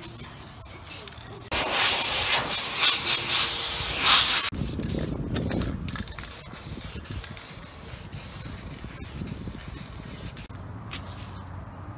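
Aerosol spray can of black vinyl dye hissing in one burst of about three seconds onto a vinyl seat panel, starting and cutting off abruptly.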